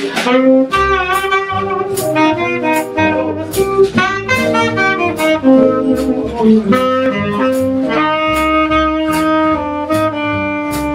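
Small jazz band playing an instrumental intro: a saxophone plays the melody over guitar, double bass and drums keeping a steady beat.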